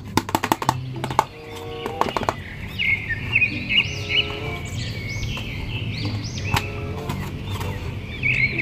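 Background music with a run of short, high, repeated chirps that sweep upward, starting about three seconds in. A few quick sharp clicks come in the first two seconds.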